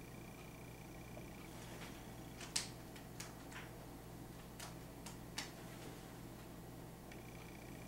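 About five sharp clicks and taps, a little under a second apart, from dry-erase markers being capped, uncapped and set to a whiteboard during a switch from a red to a blue marker, over a faint steady hum.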